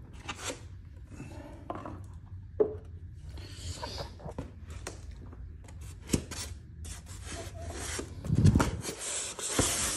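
Cardboard shipping box and styrofoam packing inserts being handled and opened: irregular rubbing and scraping with a couple of sharp knocks, louder rubbing and thumping near the end.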